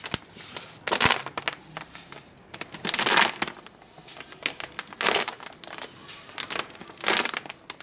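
A plastic water bottle filled with hand-wash solution, used as a homemade snow spray, squeezed four times about two seconds apart. Each squeeze gives a short burst of noise as the plastic crumples and the spray shoots out.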